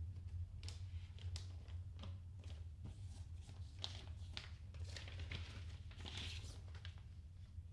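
Packaging of a double vinyl LP being handled and opened: irregular crinkling, rustling and tearing crackles, busiest in the second half, over a steady low electrical hum.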